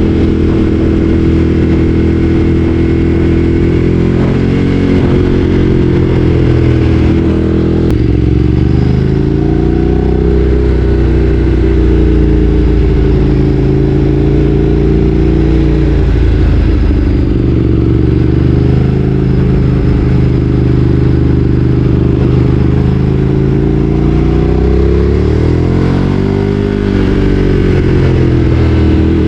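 Ducati Streetfighter 848's L-twin engine under way, its pitch rising and falling several times as the rider accelerates and eases off through the revs.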